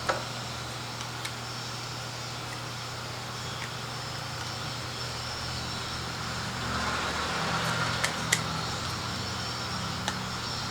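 Steady low hum and hiss of background machinery, with a few light clicks and taps from washer drain pump parts being handled and fitted.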